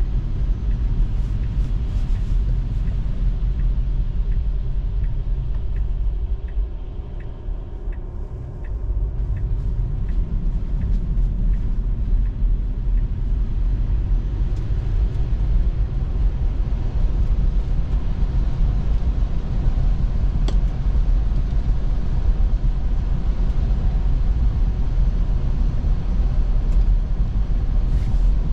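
Steady tyre and road rumble inside a Tesla's cabin while driving on a snowy road, with no engine sound. For the first third the turn signal ticks evenly, and the rumble eases for a few seconds as the car slows for a left turn, then picks up again.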